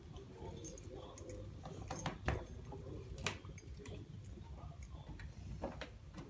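Scattered irregular clicks and taps over a low rumble, with a few sharper ticks about two and three seconds in.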